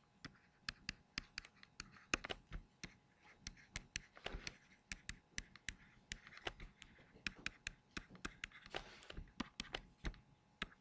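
Stylus tip tapping and scratching on a tablet screen while handwriting, a faint, irregular run of quick clicks with short scratchy strokes between them.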